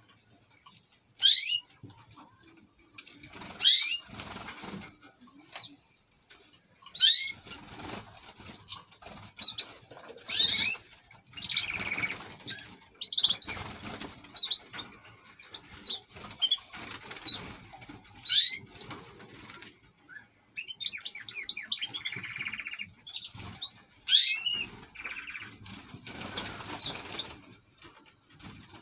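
Caged finches, a canary and greenfinch-hybrid birds, giving loud, sharply falling chirps every few seconds, with a quick rattling trill about two-thirds of the way through. Between the calls come wing flutters and scuffling as the birds hop about the cage.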